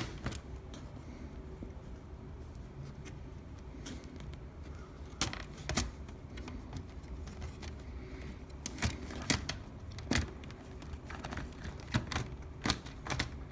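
Scattered sharp clicks and taps of a Dell Latitude 3400 laptop's plastic case being handled and pressed, a few near the middle and more toward the end, as a case that will not snap shut is worked at.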